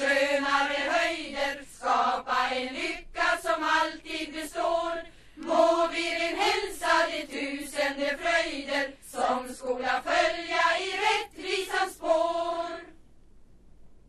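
Choir singing a Swedish song in phrases with short breaths between them, the song ending about 13 seconds in.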